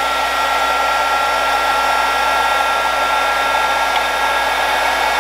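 Handheld electric heat gun running steadily, a rush of blown air with a steady fan whine, blowing hot air onto a battery's temperature probe to trip its high-temperature protection.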